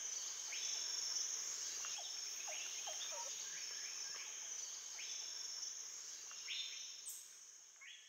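Rainforest ambience: a steady high insect drone with bird calls, short rising chirps repeated every second or so and a few falling whistles, fading out near the end.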